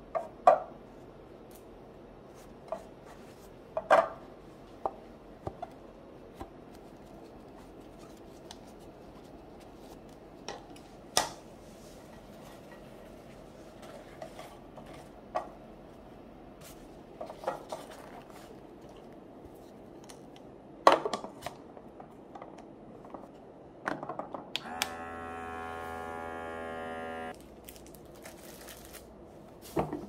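Hands handling a clear plastic food-storage container, paper towels and leafy greens: scattered light taps, clicks and rustles. About 25 seconds in, a small motor hums steadily for about two and a half seconds, then stops.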